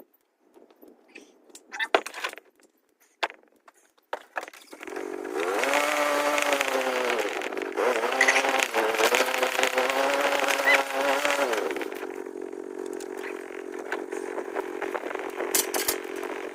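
Some scattered clicks and knocks, then an engine comes in about five seconds in. It revs up and down several times and settles to a steady, even run from about twelve seconds on.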